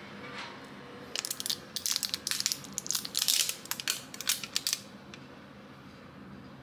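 Thin clear plastic dessert tray crackling and crinkling in the hand as a wooden fork prises a mochi out of it: a dense run of crackles starting about a second in and stopping just before five seconds.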